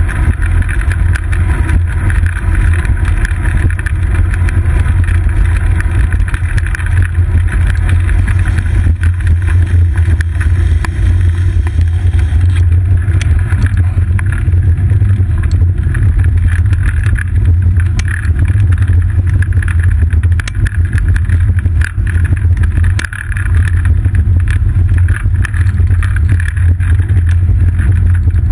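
Steady, loud low rumble of wind and road vibration on a seat-post-mounted GoPro Hero 2 as a bicycle rolls along paved path, with occasional light knocks from bumps.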